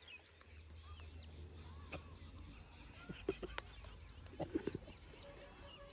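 Faint chirping of several small birds in the open countryside, with a few sharp clicks and short soft knocks about halfway through.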